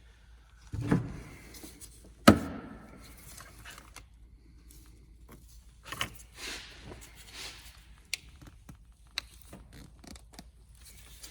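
Pliers working at a plastic mega fuse holder to pry its cover off: two loud knocks about a second apart near the start, then scraping and scattered sharp clicks of plastic and metal.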